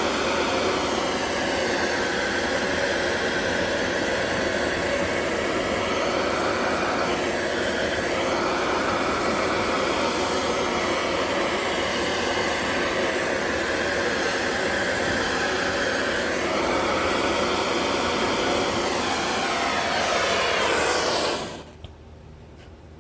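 Steady rushing of a handheld torch flame charring the carved wood surface. It drops away and shuts off abruptly about 21 seconds in.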